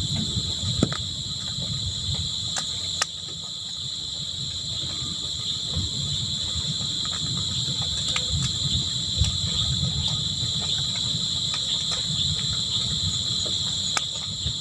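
A chorus of crickets chirping steadily in a high, unbroken trill, over a low, uneven rumble, with a few sharp clicks.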